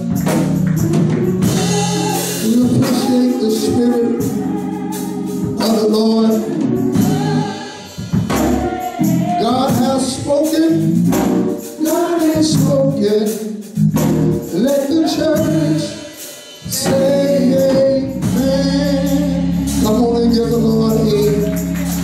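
Gospel music: a man singing a song over instrumental backing with sustained low notes, with a tambourine shaking along.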